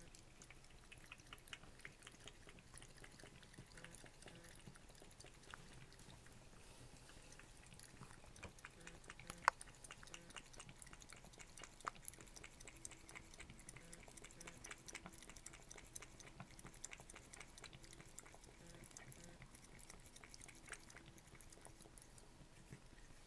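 Cat lapping water at a sink drain: faint, rapid wet tongue clicks and small splashes, with a couple of sharper clicks about nine and a half and twelve seconds in.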